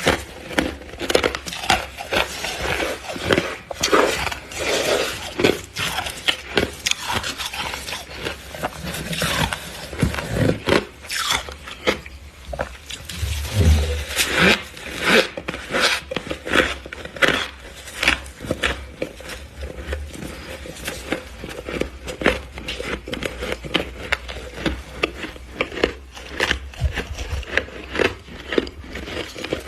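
Freezer frost being bitten and chewed: a dense run of irregular, crackly crunches, close to the microphone.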